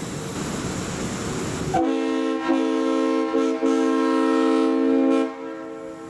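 Leslie RSU-3L three-chime train horn blowing a steady chord. It sounds through heavy noise at first, then comes in loud and clear about two seconds in, stutters briefly a few times, and stops a little after five seconds.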